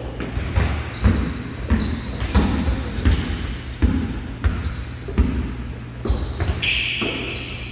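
A basketball being dribbled on a hardwood gym floor, bouncing about once every two-thirds of a second. Short, high squeaks of sneakers on the court come in between the bounces.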